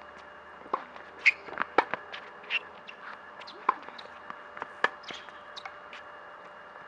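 Tennis rally on an outdoor hard court: sharp knocks of racket strings hitting the ball and the ball bouncing, with shoe scuffs on the court surface. The knocks come irregularly, every half second to a second, the loudest about a second in and near two seconds.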